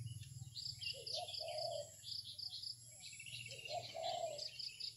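Faint background of chirping insects and birds: rows of short, high chirps repeating evenly, with two lower, longer calls, one about half a second in and one after about three and a half seconds.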